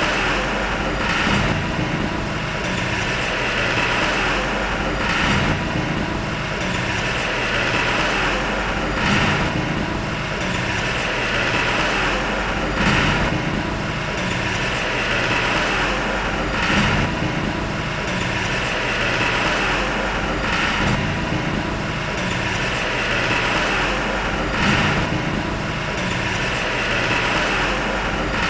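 Heavy earthmoving machinery's engine running steadily, with a brief swell in the sound about every four seconds.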